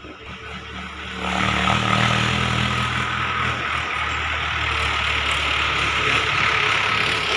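A motor vehicle's engine running close by, swelling about a second in and then staying loud and steady, with a hissing noise over a low hum.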